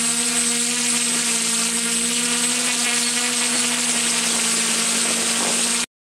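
Tarot FY680 hexacopter's six 2814 770kV brushless motors and 11x5 propellers running steadily in flight, heard close from the craft itself, with a thin high whine over the buzz. The sound cuts off abruptly just before the end.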